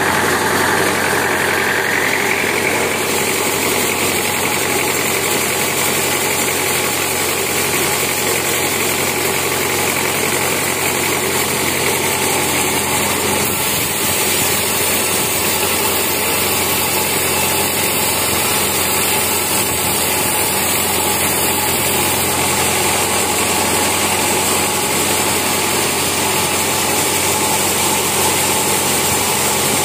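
Vertical band sawmill running steadily while its blade rips lengthwise through a teak plank. A tone rises over the first couple of seconds, then the machine noise holds steady.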